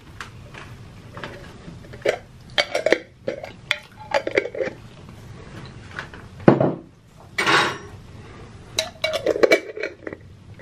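Cutlery and dishes clinking and knocking on a table in short, scattered strokes, with a short hiss about seven and a half seconds in.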